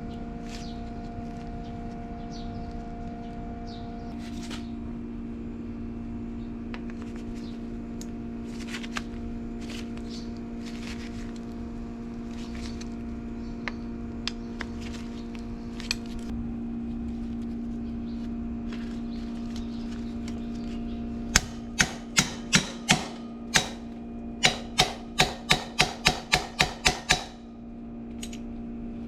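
Workshop tool noise over a steady mechanical hum: scattered light clinks, then about a dozen loud, sharp knocks in quick succession that come faster toward the end.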